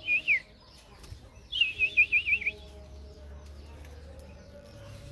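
Oriental magpie-robin singing: a short two-note whistled phrase at the start, then a second phrase of about six quick rising-and-falling whistled notes about a second and a half in.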